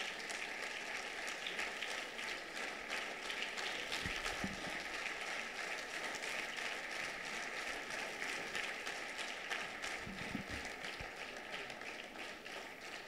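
Audience applauding steadily, many hands clapping at once, with a couple of soft low thuds about four and ten seconds in.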